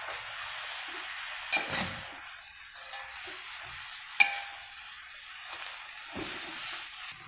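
Water spinach and bean sprouts sizzling in a hot metal wok while a metal spatula stirs and scrapes through them, with a couple of sharp clinks of the spatula against the wok, the loudest about four seconds in.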